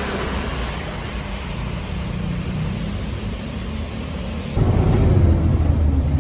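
Steady low rumble of road traffic or a motor vehicle, stepping up abruptly louder and deeper about four and a half seconds in.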